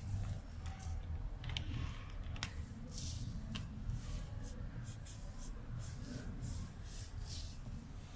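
A felt-tip marker stroking across paper, heard as a quick series of short hissing strokes, about a dozen, over a low steady room hum.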